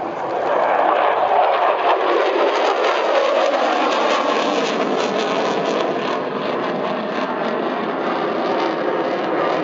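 F-16 fighter's single jet engine, loud and steady as the jet flies a tight pass overhead, with a crackling edge from about four seconds in.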